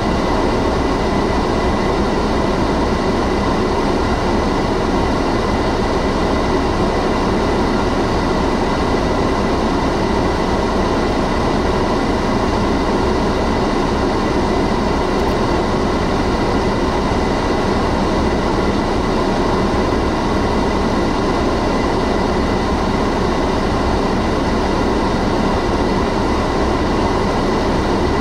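Automatic car wash machine running, heard from inside the car: a steady, unbroken loud noise with a faint constant whine above it.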